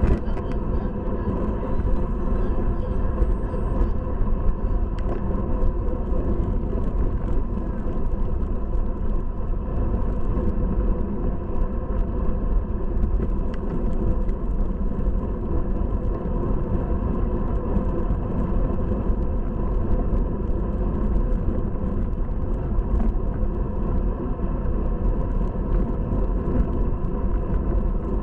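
Steady rush of wind and road noise on a bicycle-mounted Cycliq Fly12 camera's microphone as a road bike races along at speed, heavy in the low end with a faint steady hum over it.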